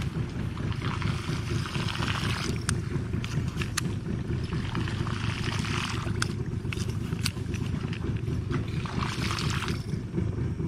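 Small boat's engine running steadily with a low rumble as the boat moves along, with swells of hiss and a few sharp clicks over it.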